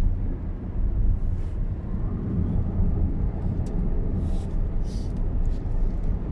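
Steady low rumble of a moving car heard from inside the cabin, mostly road and tyre noise. A few brief hissing swishes come about a second in and again around four and five seconds in.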